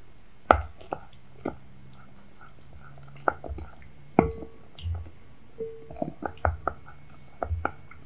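Wooden spoon stirring in a glass mixing bowl, knocking and clinking against the glass at an irregular pace, about a dozen taps, some leaving a brief ringing tone from the bowl. The bowl holds warm milk with yeast being mixed in.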